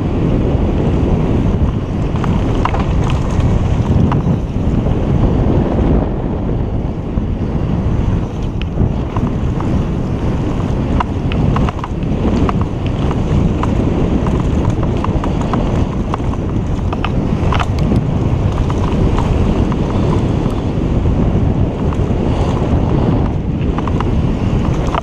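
Mountain bike running fast down a dirt trail, with heavy wind rumble on the microphone, tyre noise on dirt and scattered sharp clicks and rattles from the bike.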